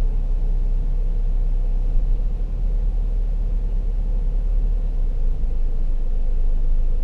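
Steady low rumble of a Ford car heard from inside the cabin, its engine running at low speed while the car waits to reverse into a parking space.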